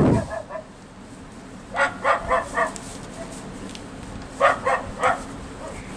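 Dog barking in two short volleys: four quick barks about two seconds in, then three more about a second and a half later. A loud low thump at the very start.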